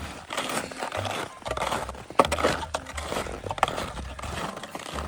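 Footsteps crunching and scraping on winter snow and ice, with a couple of sharper clicks in the middle, over a low, patchy rumble on the microphone.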